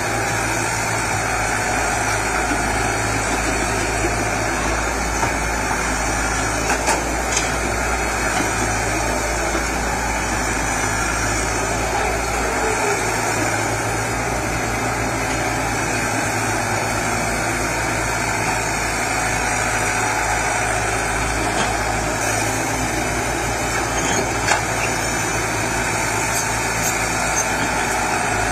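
Diesel engines of two hydraulic crawler excavators, one a Komatsu, running steadily under load as they dig soil, with a few short knocks.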